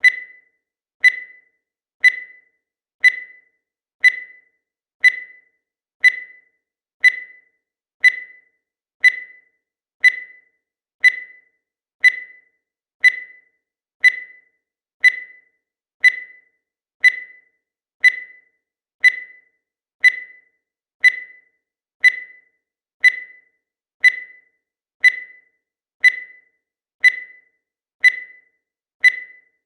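Digital timer beeping once a second: a short, high electronic beep with a sharp start that fades quickly, repeating evenly with silence between.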